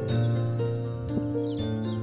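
Background music with a steady beat and held notes that step from one pitch to the next. Short, high bird chirps sound above it.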